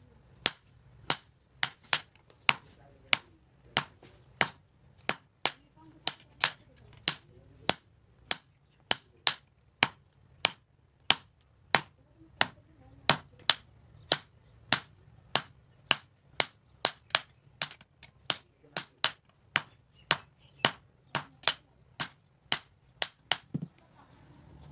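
Blacksmith's hand hammer striking steel on an anvil in a steady rhythm, a little under two blows a second, each blow ringing with a high metallic tone: forging the cleaver blade.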